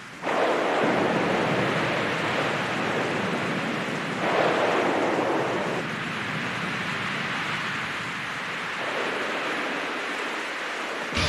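Loud, steady rushing noise that starts suddenly and swells three times, near the start, about four seconds in and again about nine seconds in.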